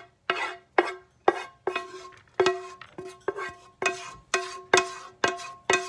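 A spoon knocking and scraping against cookware as cooked rice is scooped into a bowl. The knocks come about twice a second, and each rings briefly at the same pitch.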